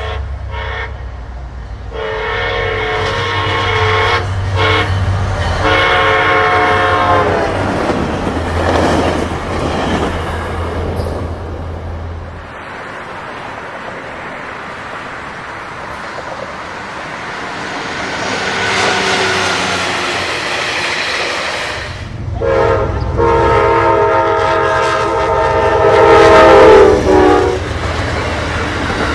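Locomotive air horns: a multi-chime horn sounds blasts over a low engine rumble, the last three long, short, long, the pattern blown for a grade crossing. After a quieter stretch of train running noise, another loud long horn blast comes as a passenger train passes, its wheels clattering on the rails.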